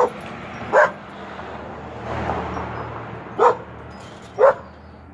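Dog barking: four short, sharp barks in two pairs, one pair at the start and one about three and a half seconds in.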